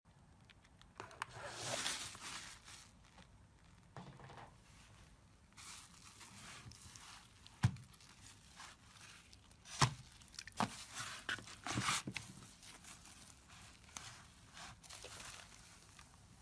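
Hands squeezing, stretching and folding slime, giving faint crackling and squishing with a few sharp clicking pops in the second half.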